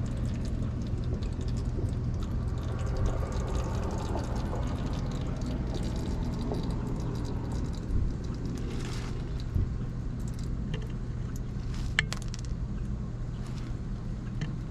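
A steady low rumble like a vehicle or nearby traffic, with a few sharp clicks and clinks. Under it, engine oil trickles from the drain into a plastic bucket as the draining nears its end.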